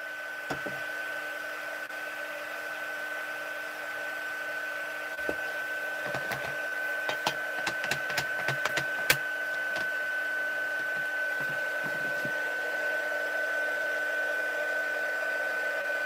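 Embossing heat tool running steadily in the background with a constant whine. Clear acrylic stamp blocks give a series of small clicks and taps on the desk between about five and nine seconds in, the sharpest knock near nine seconds.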